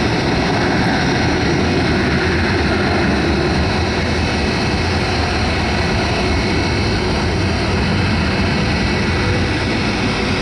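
Jet noise of an MD-82 airliner taking off: its two rear-mounted Pratt & Whitney JT8D low-bypass turbofans at takeoff power, a loud steady rumble and hiss with a faint thin whine on top, easing slightly near the end.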